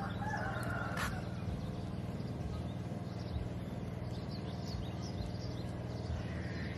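A motor running steadily with a low pulsing hum. Faint high chirps come and go over it, and there is one sharp click about a second in.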